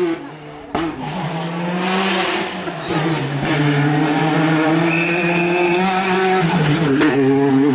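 Turbocharged four-cylinder R5 rally car engine at high revs, its pitch rising and dipping with throttle and gear changes. There is a sharp pop about a second in, and a brief high tyre squeal near the middle.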